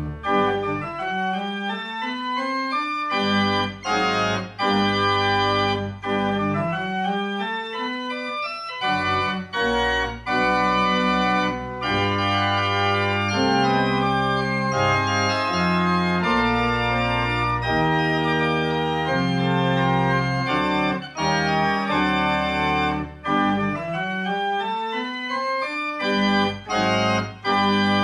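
Church organ playing a postlude: sustained chords over long-held pedal bass notes, with a few brief breaks between phrases.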